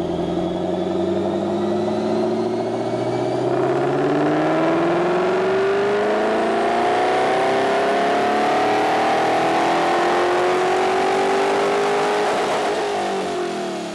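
Ford Shelby GT500 Mustang's supercharged V8 making a full-throttle chassis dyno pull: the engine note climbs steadily through the revs for about twelve seconds, then drops away as the throttle is released near the end.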